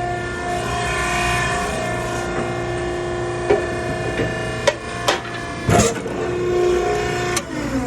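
Maren hydraulic baler running: a steady pump whine and hum, with several sharp knocks and cracks from about halfway in, the loudest a little before the end. Near the end the whine drops in pitch as the machine winds down.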